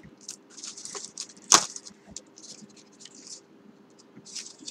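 Paper and booklets rustling as they are handled, with a sharp tap about a second and a half in.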